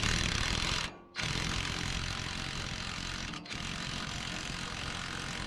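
Socket ratchet wrench clicking rapidly as a nut is run down onto a gas spring mount, with short pauses about a second in and again just past three seconds.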